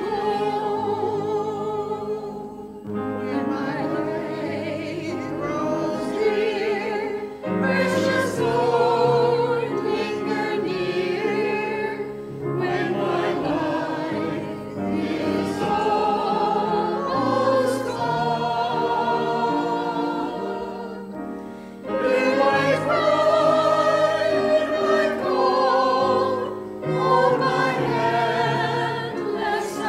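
A choir singing in long held phrases with vibrato, broken by short pauses between phrases.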